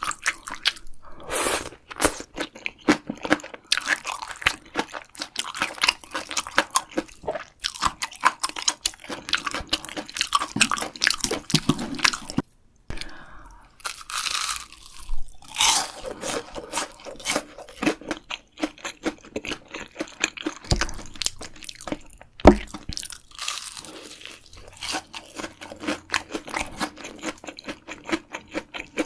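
Close-miked eating: crunchy bites and chewing, one after another. Two dull thumps come a little past the middle, the second the loudest.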